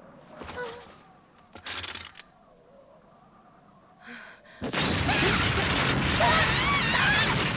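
Two short breathy gasps, then, a little past halfway, a sudden loud crash that keeps going as a dense rumble of breaking rock and concrete as the ledge gives way, with a wavering high whine over it.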